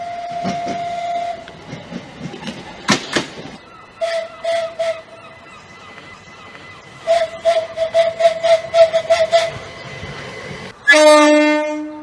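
Train horns on Southern Class 377 Electrostar electric units: one held note at the start, a brief clatter around three seconds, a few short toots at four seconds, then a rapid stuttering run of toots for about two and a half seconds. Near the end a louder, lower horn blast sounds for about a second.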